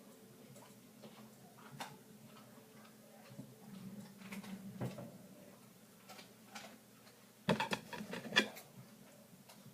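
Scattered light clicks and taps of small objects being handled, with a quick run of louder clicks near the end, over a faint steady hum.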